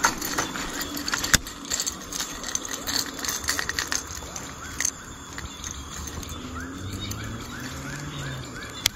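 Treble hooks and the hard body of a topwater lure clicking and clinking in the hands, a quick run of small clicks over the first few seconds. Later a baitcasting reel's spool whirs as the lure is cast, with a sharp click near the end.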